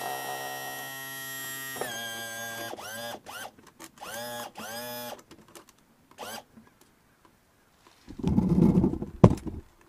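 Electric power trim and tilt motor of a Yamaha HPDI outboard whining as the engine is tilted up: one run of about two seconds, then three short runs that each rise in pitch as the pump spins up and fall away as it stops. Near the end comes a loud rustling thump with a sharp click.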